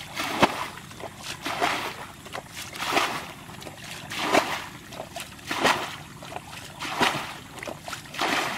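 Muddy ditch water being bailed out with a bucket: scooped up and flung out in a splash about every second and a quarter, some seven times.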